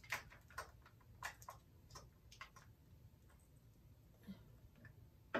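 Faint, irregular light clicks and taps of plastic lip gloss tubes being handled and set among others in a stand, long acrylic nails clicking against them; most of the clicks fall in the first half.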